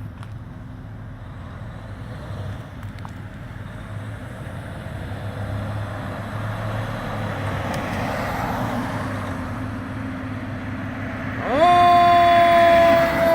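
Fire engine's engine running and building, then about twelve seconds in an air horn blasts: a loud chord that jumps up in pitch and holds to the end.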